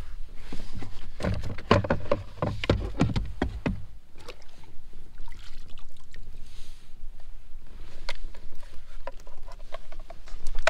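Clicks, knocks and rattles of fishing gear being handled in a plastic kayak as a trout on a lip grip is readied for a measuring board. The knocks come thick and fast in the first few seconds, then thin out to occasional taps.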